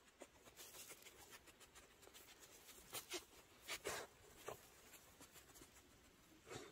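Faint rustling with a few short soft clicks, the loudest about three to four seconds in, from a dog nosing and licking in grass.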